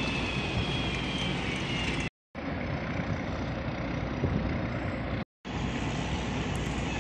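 Steady low rumble and hiss of open-air river-port ambience, cut off twice for a moment where clips are spliced together. A faint high whine sounds over it in the first two seconds.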